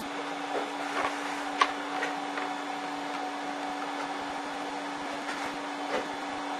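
Steady hum with a constant hiss of background room noise, broken by a few light clicks and one sharper click about a second and a half in.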